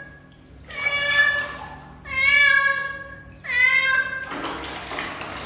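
Kitten meowing three times in long, drawn-out calls while held standing in a basin of bath water. Water splashes in the basin near the end.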